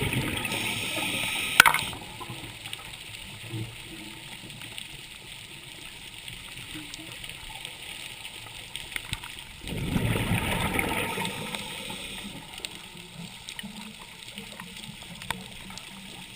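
Exhaled bubbles from a scuba diver's regulator, heard underwater in two bursts about ten seconds apart. The first burst ends with a sharp click. A faint hiss with scattered small clicks fills the gap between them.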